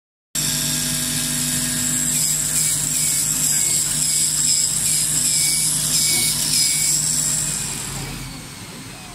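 CNC oscillating-knife cutting machine running as its head cuts leather: a steady hiss with a low hum, overlaid by a string of short repeated chirps. The sound dies down near the end.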